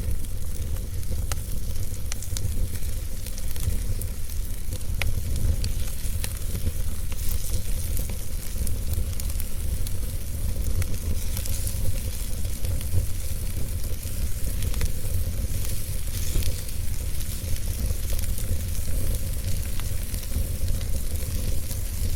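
Fire crackling, with scattered sharp pops and a hiss over a steady low rumble.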